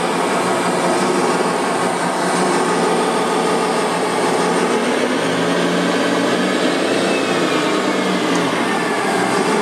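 Radio-controlled construction machines running, a steady whir of small electric motors and gearing. A faint whine falls in pitch about seven seconds in.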